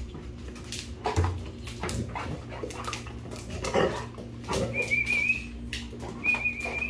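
Two dogs play-wrestling on a hard floor, with scuffling and clicking of paws throughout and two short high whines near the end.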